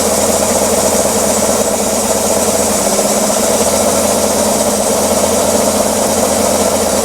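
Engine idling steadily, a constant mechanical hum that does not change.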